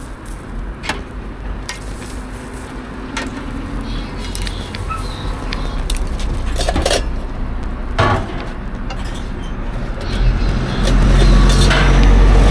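Street-stall background noise: a few sharp clicks and knocks scattered through it, and a low rumble that grows louder about ten seconds in.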